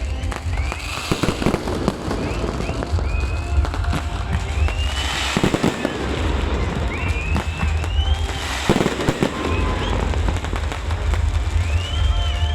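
Fireworks going off: a continuous deep rumble of booms, with three larger crackling bursts, about a second in, around the middle and a little later, and short high arching whistles recurring throughout.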